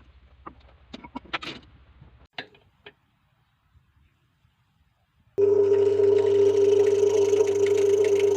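A few light knocks and clicks of tools and wood being handled, then about five seconds in an electric power tool switches on and runs with a loud, steady whine.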